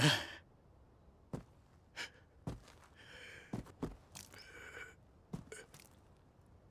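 A badly wounded young man's ragged, gasping breaths, with a few short knocks in between.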